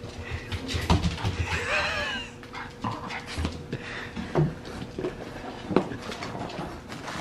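French Bulldog puppies panting and scuffling together on a tile floor, with scattered clicks and light knocks. About one and a half seconds in there is a short, wavering whine.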